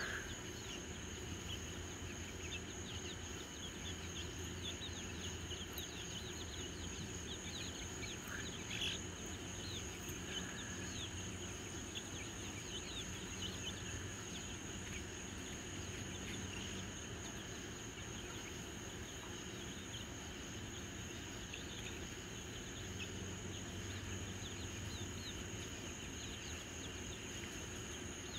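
Steady high-pitched insect chorus, with many faint short chirps scattered through it and a low hum that comes and goes.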